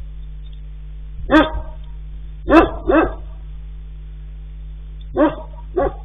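A dog barking: five short barks, one about a second and a half in, a quick pair around three seconds, and another pair near the end, over a steady low hum.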